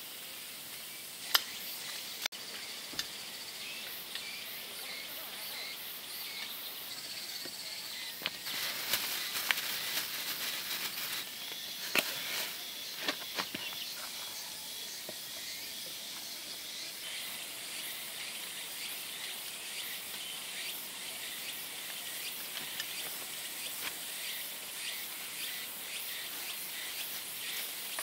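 Insects chirring steadily at a high pitch, with a few light knocks and rustles as potted plants are handled and set down.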